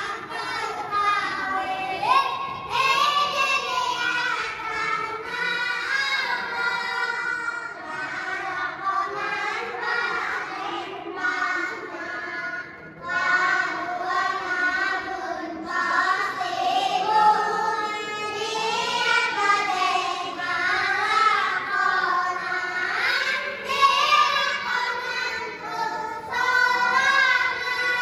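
Children singing together in unison.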